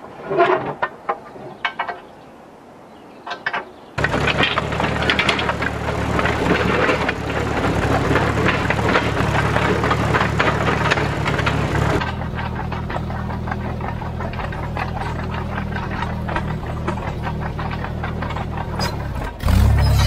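A few sharp metal clanks as the blade of a vintage Bristol 25 crawler dozer is handled, then the dozer's engine running steadily as the machine drives along the track, with a brief louder surge near the end.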